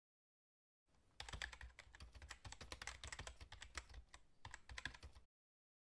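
Computer keyboard typing: a quick, uneven run of key clicks starting about a second in and stopping about a second before the end, with silence either side.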